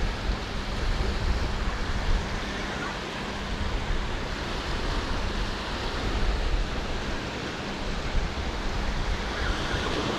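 Surf washing on a beach with wind buffeting the microphone, a steady noisy rush with low rumbling gusts.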